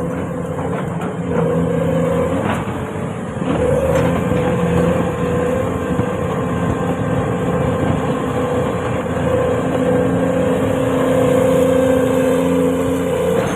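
Hyundai 450 excavator running, its diesel engine and hydraulics working under changing load, with a steady whine over the engine note. It grows louder about a second and a half in, eases briefly, then rises again about three and a half seconds in.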